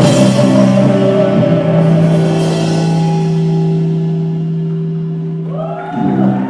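Live rock band ending a song: the final chord is held and rings out, slowly fading over several seconds, heavily distorted as recorded on a phone. Near the end, a short louder burst of rising tones cuts in over the last of it.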